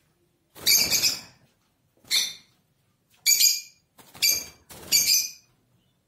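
Lovebird calling in loud, high-pitched shrieks: five short calls a second or less apart, each under half a second long.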